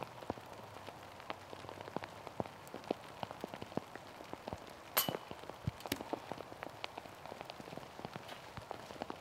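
Rain falling, with raindrops ticking irregularly and closely on a surface near the microphone, and one sharper, brighter hit about five seconds in.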